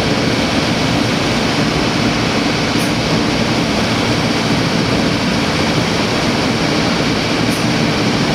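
Thermwood five-axis CNC router at work, its spindle machining a wooden dome pattern: a steady, loud wash of machine and cutting noise that holds even throughout.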